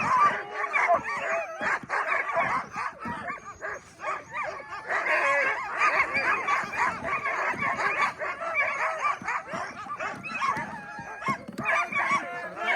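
Many sled dogs barking and whining at once, their calls overlapping in a continuous chorus, with a brief lull about four seconds in.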